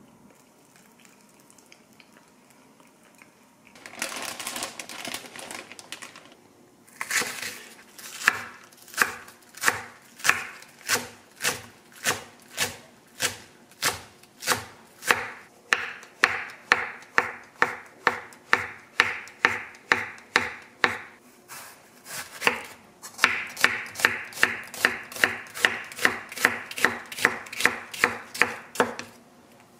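Chef's knife chopping green onions and then slicing onion on a wooden cutting board: regular knocks of the blade on the board, about two a second, quickening to about three a second in the last several seconds.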